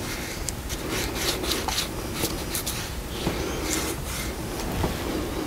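Hands rubbing a sheet of paper resist down onto a slip-covered clay plate, in many short, irregular scratchy strokes.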